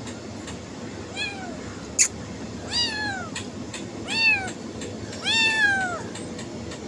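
A cat meowing four times, each meow rising and then falling in pitch; the fourth is the longest. A sharp click sounds about two seconds in, over a steady background hiss.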